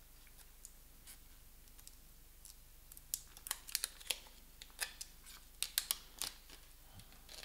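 Scattered light clicks and crinkles of a plastic Samsung Galaxy S4 smartphone and its protective wrap being handled and picked at with the fingers, coming in the second half after a quiet start.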